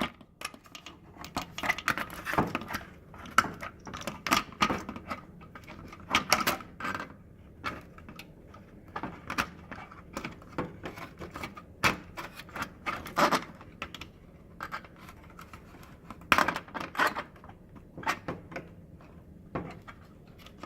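Irregular clicks, taps and light rattles of a plastic microwave keypad panel being handled and worked into its grooves by hand.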